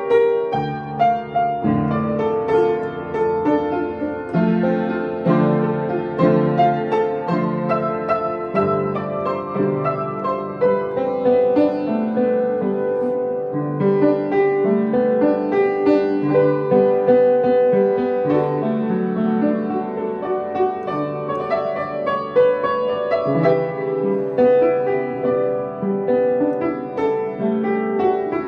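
Piano playing a melody over chords and low bass notes.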